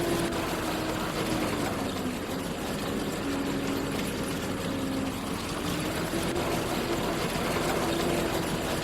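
Farm machinery engine running steadily under a broad rumble, its pitch sagging and recovering a few times as the load changes.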